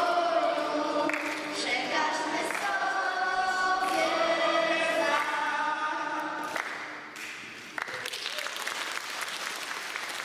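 A group of children and adults singing together as a choir, the song ending about seven seconds in; applause starts suddenly about a second later and carries on.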